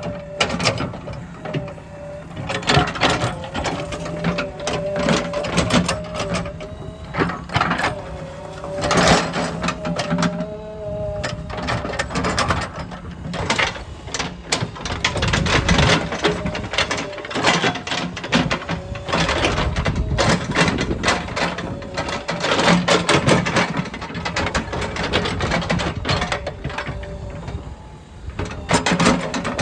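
Digger at work: its diesel engine runs steadily with a wavering whine under it, over many irregular clanks and scrapes of the bucket against stone and debris.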